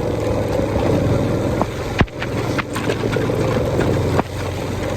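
A motorbike engine running steadily under heavy wind and rain noise on the phone microphone, with a few sharp clicks, about two seconds in and again near the end.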